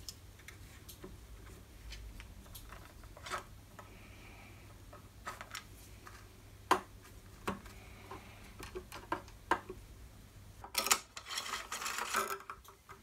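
Light metallic clicks and taps of a hex key and small hand tools against a steel linear rail and its bolts, scattered and irregular, with a denser run of clinking near the end.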